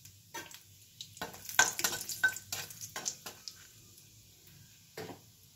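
Nigella seeds and dried red chillies crackling in hot mustard oil in a kadai while a spatula stirs them around the pan. A cluster of sharp crackles and clicks starts about a second in and thins out by about four seconds, with one more click near the end.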